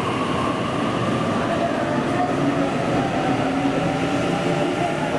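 Passenger train moving through the station: a steady rumble of wheels on rails with a few steady tones running through it.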